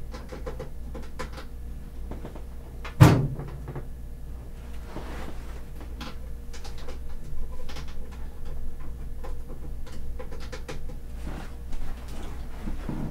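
Handling noises from a desktop computer and its cables being set up: scattered small clicks and knocks, with one loud thump about three seconds in, over a steady low hum.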